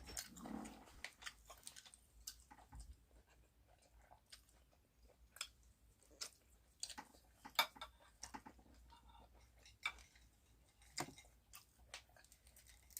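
Chewing and eating sounds: faint wet mouth clicks and smacks, with a few sharper clicks, the loudest a little past halfway.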